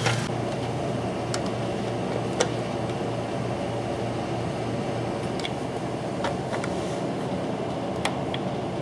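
A steady low hum, with about six light scattered clicks of a screwdriver working the CPU cooler's metal mounting screws on the motherboard bracket.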